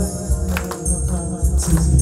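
Song accompaniment music with a steady beat, a strong bass line and a jingling, tambourine-like percussion on the beats.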